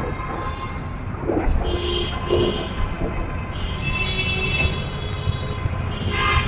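Busy street traffic: engines of auto-rickshaws and cars running and passing, with several horn blasts about a second and a half in and again around four seconds.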